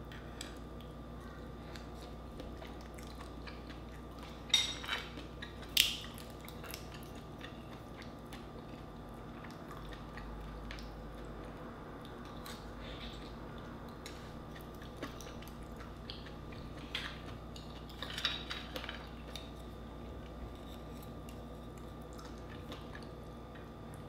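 Eating sounds from a plate of mussels: shells and a spoon clink against a plate and a glass sauce bowl, with quiet chewing. The sharpest clicks come about four to six seconds in, and a cluster comes around eighteen seconds.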